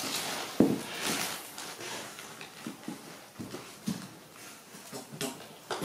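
Irregular knocks and scuffs of a plastic toy beetle and a small monkey moving on a tiled floor, with one sharp knock about half a second in.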